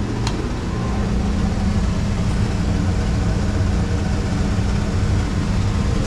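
Steady machinery noise of a commercial boiler room: a low drone with a constant hum, and a single sharp click just after the start.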